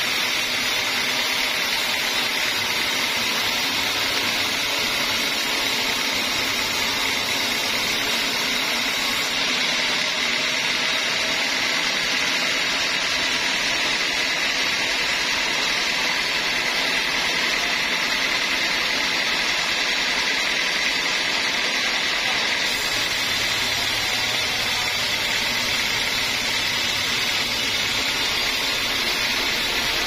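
Band sawmill blade cutting lengthwise through a large, very old teak log, a steady, continuous machine whine with the rasp of the cut.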